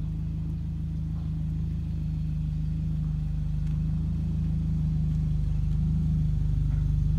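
Scion tC's four-cylinder engine and exhaust running at a low, steady idle-like speed as the car reverses slowly, getting gradually louder as it comes closer.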